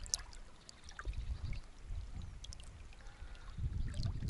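Small river waves lapping and splashing right at a camera held at the water's surface, with scattered small splashes. Wind buffets the microphone in low gusts, strongest about a second in and again near the end.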